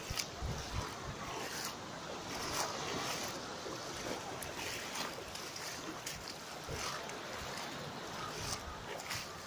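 Small waves washing in the shallows of a surf beach, a steady wash with wind buffeting the phone's microphone.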